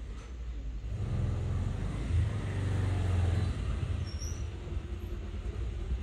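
A motor vehicle going by: a low engine rumble that grows louder toward the middle and then fades.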